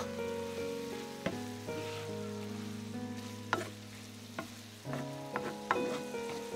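A wooden spoon stirring ground beef with tomato in a sizzling frying pan, the spoon scraping and knocking against the pan several times, over soft background music.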